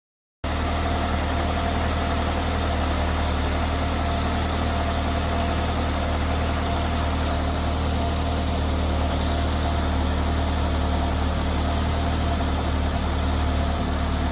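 Citroën BX 16 TRS's 1.6-litre four-cylinder carburettor petrol engine idling steadily, coming in abruptly about half a second in.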